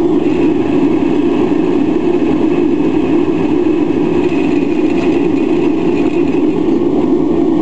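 Steady, even roar of forge-shop machinery, with no hammer blows.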